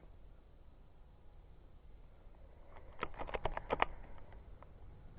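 Airsoft rifle firing a quick string of about nine sharp shots, about three seconds in, lasting under a second.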